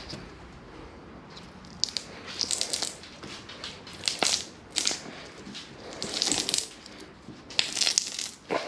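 An old window rubber seal being pried and pulled out of a car body's window opening by hand, crackling and scraping in short, irregular spells as it tears away from the sticky old sealant.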